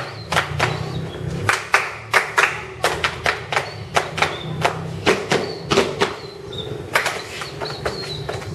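Body percussion: hands clapping and slapping the body, sharp strikes about two or three a second in an uneven rhythm, over a steady low hum.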